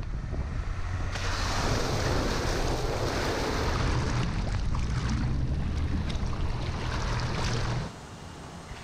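Mercedes G350 SUV wading into deep water: a low engine rumble under the rush and splash of water surging around the wheels and body. The splashing comes in about a second in and cuts off abruptly near the end, leaving a quieter hum.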